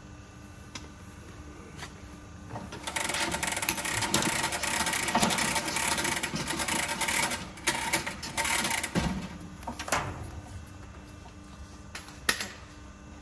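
Heavy tyre-service equipment at work on a wheel loader tyre: a steady low hum, then a loud rattling, hissing machine run of about five seconds that tails off into scattered knocks.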